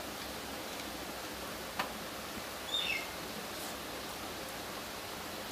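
Steady background hiss, with a single sharp click about two seconds in and a brief high, falling chirp a second later.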